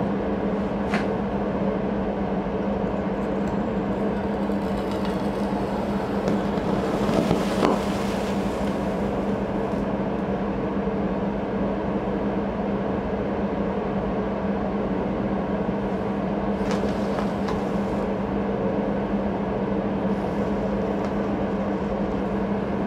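A steady mechanical hum, with a brief swell of hissing about seven seconds in and a few faint clicks.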